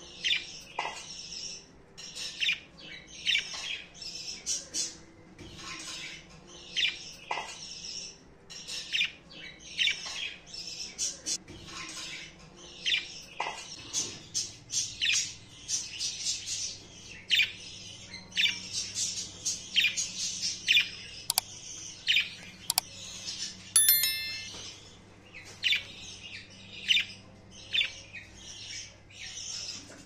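Budgerigar chirping and chattering, a steady run of short high calls, with a couple of sharp clicks about two-thirds of the way through.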